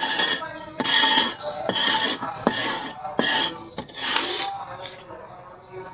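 Rhythmic scraping strokes with a metallic ring, about one a second, five in all, fading out near the end.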